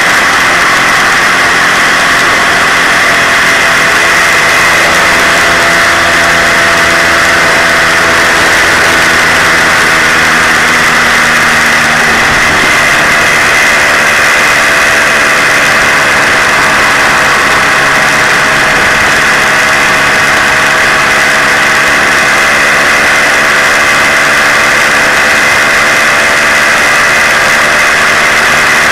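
Moped engine running steadily while riding along, over a steady rushing noise; its pitch shifts a little about twelve seconds in.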